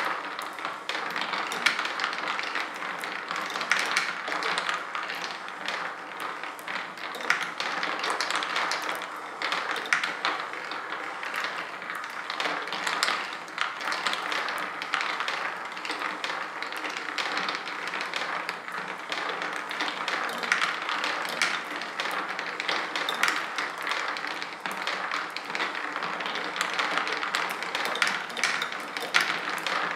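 Marble machine running, with marbles rolling and clacking along its mini golf tracks and lift in an unbroken patter of small clicks and knocks.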